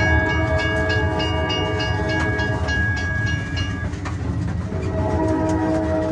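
Open trackless tourist train running, with a low steady rumble under held tones and quick regular clicks. The tones change after a short dip about four seconds in.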